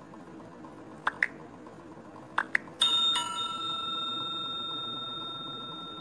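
Two pairs of short clicks, then a bell chime that rings out with a few steady tones and slowly fades: the click-and-notification-bell sound effect of an animated like-and-subscribe button.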